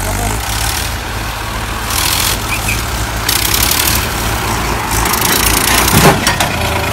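Massey Ferguson farm tractor's diesel engine running steadily, with bursts of rushing noise over it and a brief louder swell about six seconds in.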